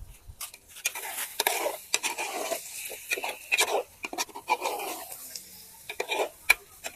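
A spoon stirring and scraping in a pot of thick egusi soup, with irregular clicks and knocks of the spoon against the pot.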